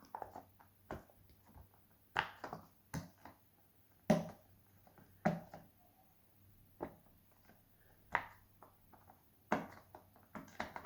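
Bubbles on the quiet side of a silicone pop-it fidget toy being pressed one by one, giving a dozen or so soft clicking pops at an uneven pace, about one a second, some in quick pairs.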